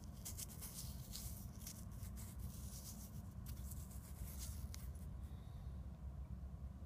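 Faint scratchy rubbing of fingers and thumb over a dirt-crusted coin held close to the microphone, in quick irregular strokes that stop about five seconds in, over a low steady rumble.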